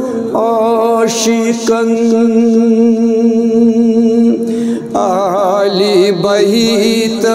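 A man singing a Kashmiri manqabat in long, drawn-out held notes, then a wavering, ornamented phrase about five seconds in.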